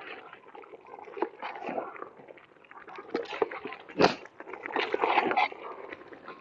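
A ladle stirring wet biryani rice in a metal pot, with uneven scraping and sloshing and a sharper knock about four seconds in. It is stirred along the bottom to keep the rice from sticking while the water boils off.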